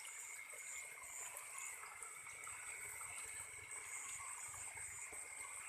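Night insect chorus with two steady high buzzing tones, over a faint trickle of water.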